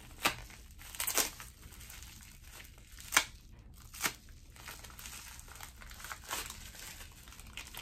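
Plastic bubble-wrap packaging crinkling as it is worked and cut open with a small knife, with several sharp snaps and crackles, the loudest about three seconds in.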